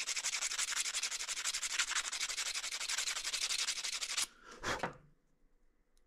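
Sandpaper rubbed in quick, even back-and-forth strokes over the tip of a freshly soldered bullet connector, cleaning excess solder off to leave the end flat. The strokes stop a little past four seconds in, and one brief rub follows about a second later.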